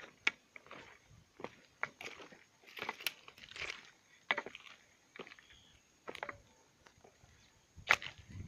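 Footsteps crunching on a loose gravel path, irregular steps with short pauses between, the sharpest one near the end.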